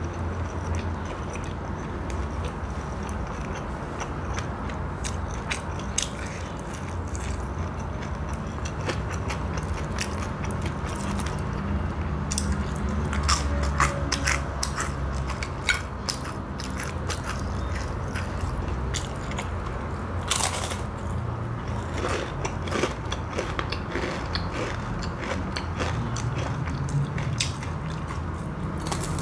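Close-miked chewing of crispy fried snacks, with sharp crunches scattered irregularly throughout as the crisp pieces break.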